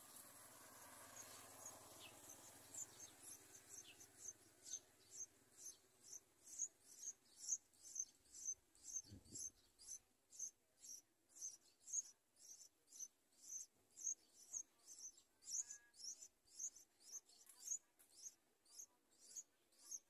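Yellow-vented bulbul nestlings begging for food: thin, high-pitched peeps repeated evenly about two or three times a second, starting about two seconds in. A single soft low thump comes about nine seconds in.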